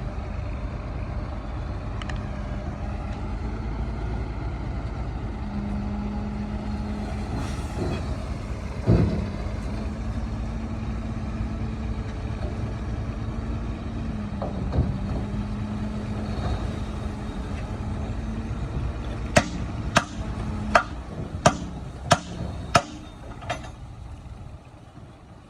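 Heavy diesel earthmoving machinery running steadily, with a loud thump about a third of the way in. Near the end comes a quick run of about six sharp knocks, then the engine noise fades.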